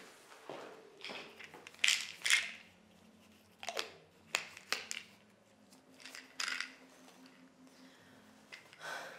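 Handling noises from a tote bag being rummaged through: a string of short rustles and clicks, some sharp, spread irregularly, over a faint steady low room hum.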